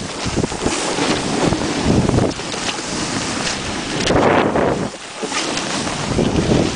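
Wind rushing over the microphone while snowboarding downhill, mixed with the board sliding and scraping over chopped snow. The noise surges and eases with the turns, loudest about four seconds in.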